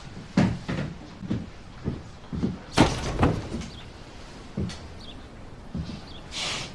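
Irregular knocks and thumps from things being handled, about nine in all; the loudest is a sharp knock about three seconds in. A short rush of hiss-like noise comes near the end.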